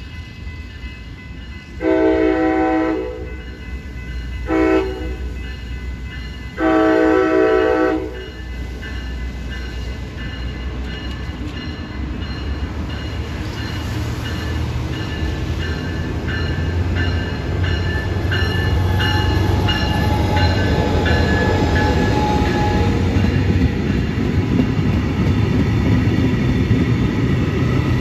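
Brightline passenger train sounding its horn for a grade crossing: a long, a short and a long blast. After that comes the growing rumble of the train as it nears and passes, with wheels on rail, and a crossing bell ringing faintly behind.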